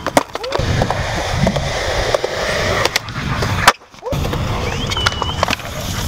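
Skateboard wheels rolling over concrete, with several sharp clacks and knocks of boards hitting the ground and rail. The loudest crack comes about two-thirds of the way through, just before the sound drops out for a moment.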